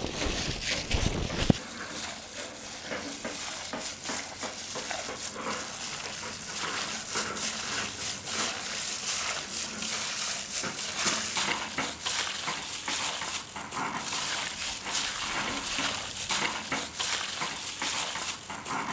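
Raw chicken pieces in a red chili powder, salt and ginger-garlic paste marinade squelching as a plastic-gloved hand mixes them by hand in a steel bowl: an uneven, continuous run of small wet squishes. A low wind rumble on the microphone fills the first second and a half.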